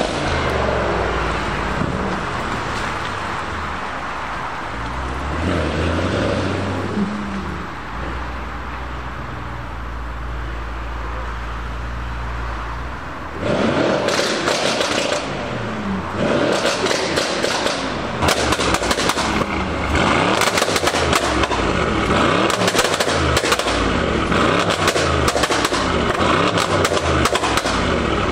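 A car engine runs low and steady for the first dozen seconds. Then a Brabus 800 Mercedes-AMG E63 S's twin-turbo V8 is revved repeatedly in quick blips, and from about 18 seconds in each rev comes with crackling pops from the exhaust.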